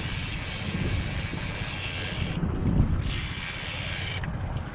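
Fishing reel clicking rapidly with a hooked spring (chinook) salmon fighting on the line, in two spells with a short break about two and a half seconds in. A steady low motor rumble runs underneath.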